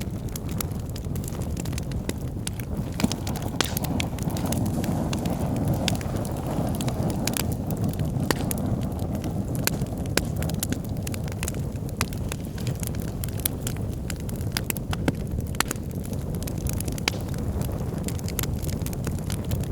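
Wood fire burning in a fireplace: a steady low roar of the flames with irregular sharp crackles and pops from the burning logs.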